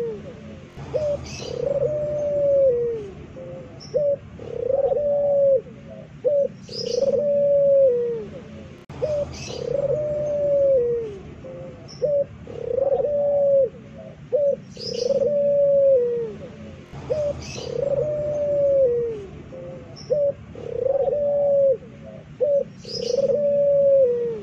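Puter pelung dove (domestic Barbary dove) cooing loudly and repeatedly, a drawn-out coo about every two seconds that drops in pitch at its end, with short clipped notes between. Faint high chirps from another small bird come every few seconds.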